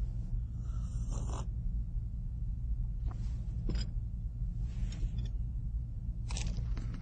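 A man sipping from a cup and breathing, heard as four short, soft mouth and breath sounds, the first a slurping sip about a second in, over a steady low hum.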